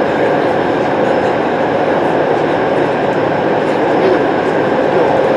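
Cabin noise of a Yokohama Minatomirai Railway Y500 series electric train running at speed through a tunnel: a steady rumble of wheels on rail with a steady hum over it.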